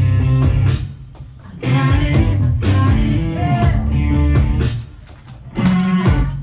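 Live band music with electric guitar, bass and drums, and a voice singing a phrase in the middle; the band drops out briefly twice between phrases.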